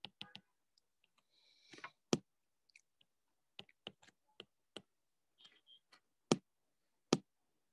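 Irregular sharp clicks and taps of a stylus on a tablet screen as pen strokes are drawn, three of them louder than the rest.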